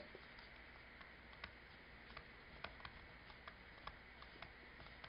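Faint, irregular light ticks of a stylus tapping on a tablet screen while handwriting, about two or three a second, over near-silent room tone.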